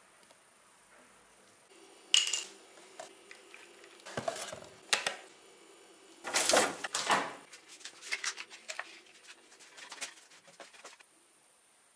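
Plastic bowl and plastic spoon being handled: scattered clatters and sharp knocks, the loudest about two seconds in and a busier cluster around six to seven seconds, over a faint steady hum.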